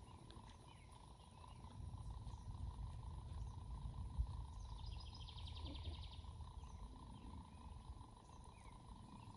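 Low outdoor rumble of wind on the microphone, with a faint steady whine, and a brief rapid buzzing trill about five seconds in.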